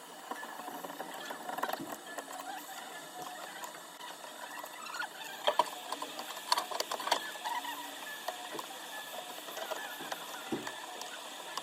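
Small hand tools scraping and clicking against an iPhone 12 Pro Max's back glass during its removal and replacement, an irregular run of scratching with sharp ticks that bunch up about halfway through.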